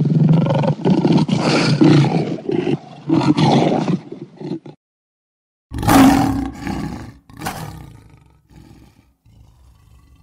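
Lion roaring and growling in a long rough bout that stops suddenly about five seconds in, then a second loud roar about a second later that fades away.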